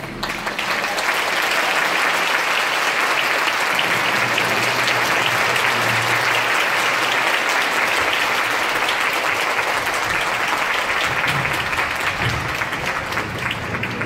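A concert audience applauding, many people clapping at once. The clapping holds steady, then thins out into scattered claps near the end.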